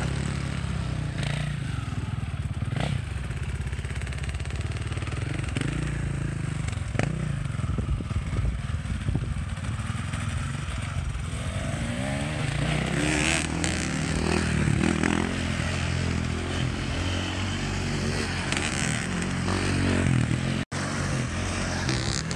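Dirt bike engines running and revving as they ride a banked wooden wall, the pitch rising and falling with the throttle and climbing clearly about twelve seconds in.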